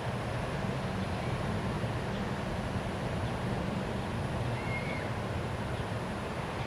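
Steady traffic noise from a busy road, an even low rumble, with a brief high chirp about four and a half seconds in.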